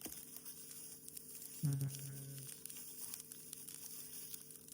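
Faint rustling and crinkling of packaging being handled during an unboxing, with a short hummed "mm" from a voice about two seconds in.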